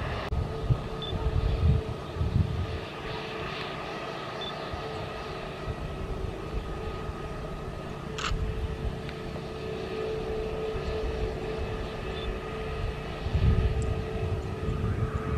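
A jet airliner's engines run with a steady whine. Wind buffets the microphone near the start and again near the end, and there is one sharp click about eight seconds in.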